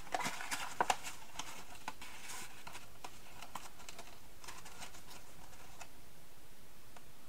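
Cardstock handled by hand: a few sharp taps and rustles in the first second as the card is folded and pressed, then only faint scattered rustling.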